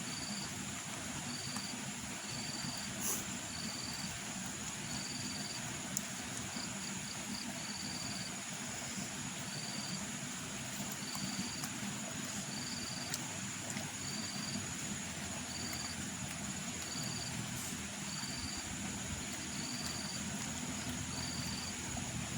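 A cricket chirping steadily, short high chirps about once a second, over a constant hiss and a faint high steady whine, with a few faint clicks.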